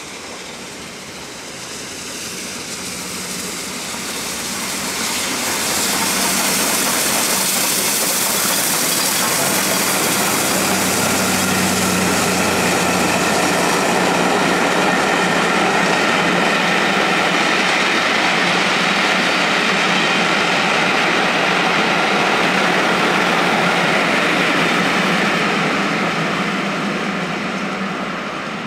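Steam locomotive 60163 Tornado, a three-cylinder 4-6-2 Peppercorn A1 Pacific, approaching and passing with its train, followed by a long rake of coaches rolling by on the rails. The sound builds over the first several seconds, holds steady, and falls away near the end.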